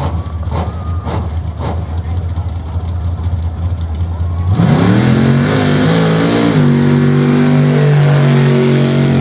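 A mud-racing vehicle's engine runs low and steady, then about four and a half seconds in revs up hard under full throttle. Its pitch drops once about two seconds later and then holds steady and loud, as the vehicle powers off down the mud track.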